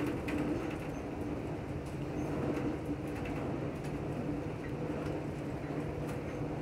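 Amtrak Southwest Chief passenger train running at speed, heard from inside the car: a steady rumble and hum, with scattered light clicks and rattles.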